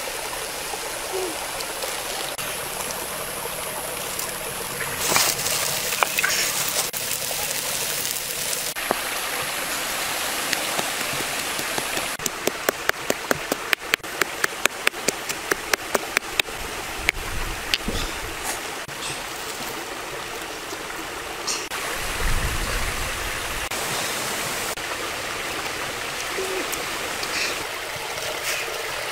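A stream rushes steadily. In the middle comes a quick run of sharp knocks, about four a second for some four seconds: a pestle pounding red chilies in a stone mortar.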